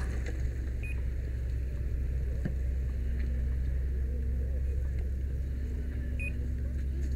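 Steady low drone of a fire engine running on scene, with a short high beep about a second in and another near the end.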